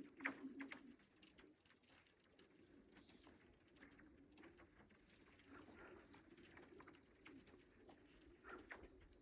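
Lake ice singing as the spring ice cover breaks up: a low, steady hum fades away about a second in, then a faint hum goes on under scattered small ticks and cracks from the ice.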